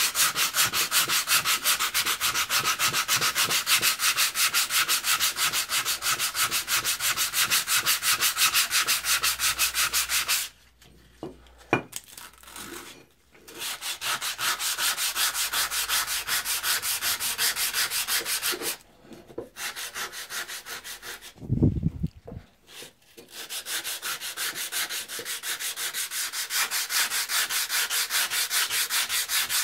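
Hand sanding of a rusty steel Plumb hewing hatchet head with 100-grit sandpaper to take off rust: fast, even rasping strokes. The strokes stop for a few seconds about a third of the way in and twice more about two-thirds through, with a single thud in the last break.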